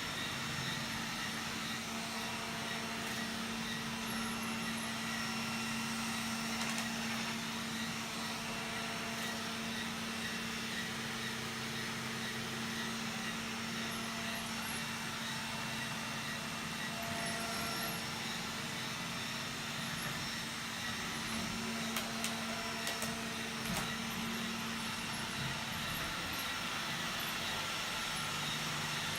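iRobot Roomba 980 robot vacuum running: a steady whir of its suction and brush motors with a constant hum, and a few short clicks about three-quarters of the way through.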